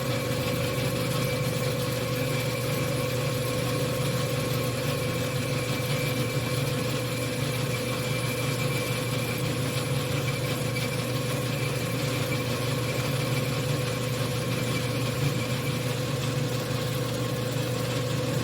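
1953 Logan 12-inch engine lathe running steadily under power, its motor and drive giving an even hum with a steady mid-pitched tone.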